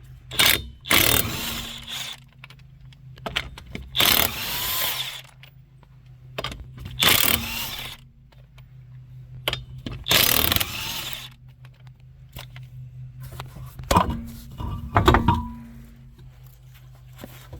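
Impact wrench running in five separate bursts of about a second each, spinning the lug nuts off a car's front wheel, over a steady low hum.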